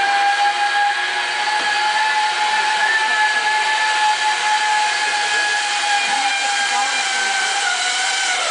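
Zip-line trolley pulley running along the steel cable as a rider travels down the line: a steady high whine that drops slightly in pitch and fades near the end.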